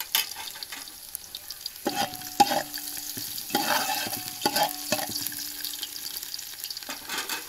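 Chopped garlic sizzling in oil at the bottom of a large metal cooking pot, being lightly fried and not browned. A metal slotted spoon scrapes and knocks against the pot several times from about two seconds in, each knock leaving the pot ringing briefly.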